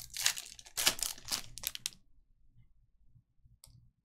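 Foil wrapper of a Topps Merlin Chrome soccer card pack being torn open and crinkled: a quick run of crackling tears that stops about two seconds in, followed by a faint click near the end.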